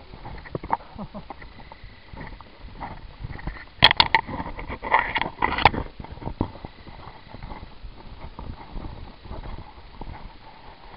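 Footsteps scuffing and crunching on a gravelly dirt floor, irregular knocks throughout. A cluster of louder sharp snaps comes about four to six seconds in.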